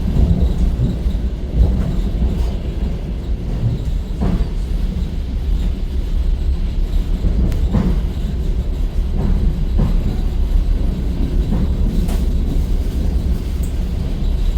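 Electric commuter train running, heard from inside the carriage: a steady low rumble with occasional sharp knocks of the wheels over the rails.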